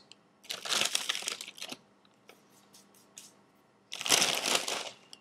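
Cap'n Crunch cereal pieces being crushed, crunching and crumbling in two bursts of about a second each, the second some three seconds after the first.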